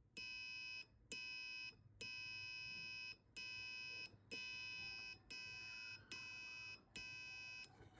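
Passive piezo buzzer on an Arduino Uno giving a steady 1 kHz tone in eight separate beeps of uneven length. Each beep lasts as long as the push button is held down: the buzzer plays the tone while the button is pressed and stops when it is released.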